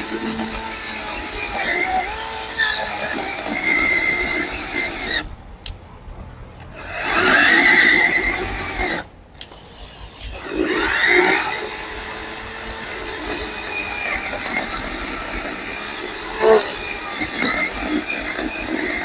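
DCA 20-volt brushless cordless chainsaw with a 10-inch bar cutting into a dry, hard log, the chain rasping through the wood with a pitch that wavers as it bites. The saw drops off twice, about five and nine seconds in, then runs and cuts on.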